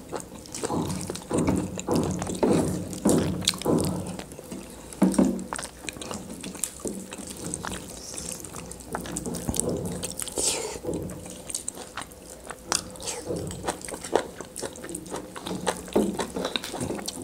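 Close-miked wet eating sounds from several people: many short, sticky clicks and smacks of lips and chewing, with fingers squishing through curry and food on metal plates.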